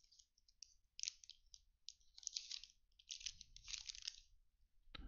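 Faint crinkling of a foil trading-card pack wrapper in several short bursts as the pack is opened and the cards are worked out of it.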